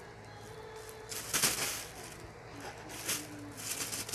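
Thin plastic shopping bag crinkling and rustling as a kitten plays on it, in a few short bursts, the loudest about a second and a half in.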